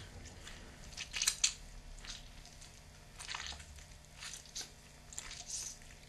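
A knife sawing through a lemon right at the microphone: a series of short, wet, squelching cuts, gross and gunky, the loudest about a second and a half in. It is a foley stand-in for a blade cutting through flesh.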